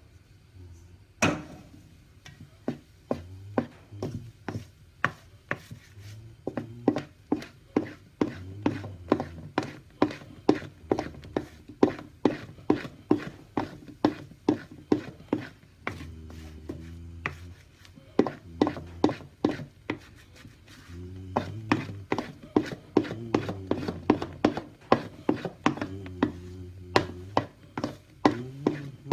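Wooden spatula folding flour into whipped egg batter in a stainless steel mixing bowl, knocking against the bowl about twice a second with a couple of short pauses. Soft background music plays underneath.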